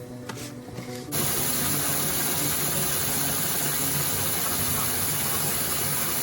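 Background music for about the first second, then a sudden, steady, loud hissing noise with a low hum underneath.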